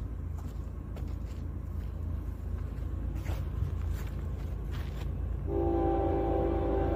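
Low steady rumble, then a freight locomotive's air horn sounds a loud steady chord of several notes, starting about five and a half seconds in.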